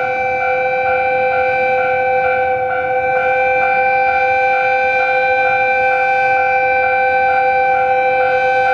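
Railway level-crossing warning alarm ringing continuously for an approaching freight train: a loud, steady, shrill ring of several tones with a fast, regular beat.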